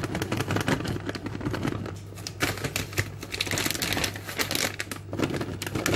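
Shredded mozzarella being sprinkled by hand over a pizza topped with sausage: a dense run of light rustling and small ticks as the cheese shreds land, busiest in the middle.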